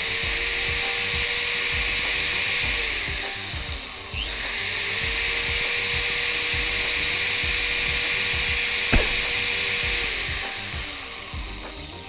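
A 500-watt motorised electric tool runs from the inverter's output. It runs for about three seconds, stops briefly and starts again about four seconds in. It whirs steadily for about six more seconds, then winds down and fades out.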